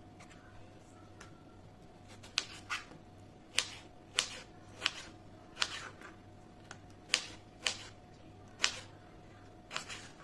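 Kitchen knife slicing a tomato. Each cut ends in a sharp tap of the blade on a plastic cutting board, about a dozen taps spaced half a second to a second apart, starting a couple of seconds in.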